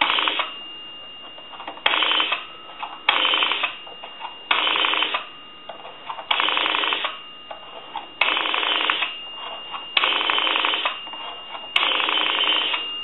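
Three-slot payphone's rotary dial dialed through its digits one after another: each return of the dial gives a quick run of clicking pulses, and each run lasts a little longer than the last. A thin, steady high tone sounds underneath throughout.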